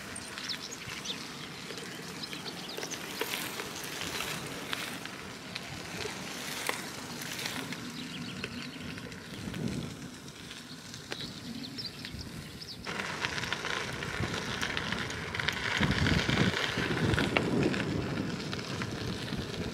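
Tandem bicycle tyres crackling along a gravel path. About thirteen seconds in, the sound changes abruptly to wind on the microphone, gusting louder near the end.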